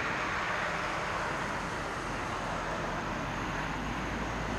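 Boeing 747-400 freighter's jet engines running at low taxi power: a steady, even rushing noise.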